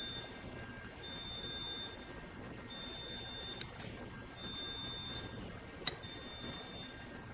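Two small metal clicks, the second louder, as a washer is handled and slid onto a steel thread trimmer cam lever shaft, over faint high tones that come and go.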